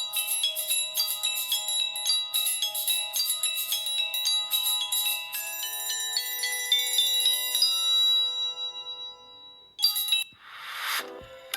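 Samsung Galaxy Note 3 Neo ringtone playing: a bright electronic melody of quick, repeating bell-like notes that changes to a run of rising and falling notes and fades out about three-quarters of the way through. A short whoosh follows, and another ringtone begins at the end.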